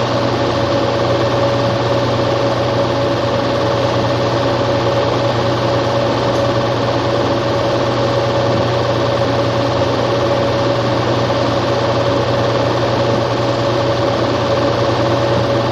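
A small machine running steadily: a rapid, even mechanical clatter over a constant hum, unchanging throughout.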